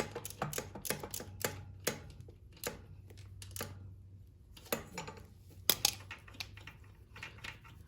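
Irregular metallic clicks and clinks of hand tools on an engine, a socket ratchet tightening bracket bolts. The clicks come quick and close together at first, then scattered, over a faint steady low hum.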